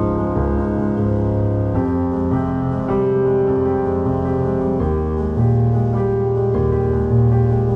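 Background instrumental music played on a keyboard, sustained chords over a steady bass, changing chord about every two to three seconds.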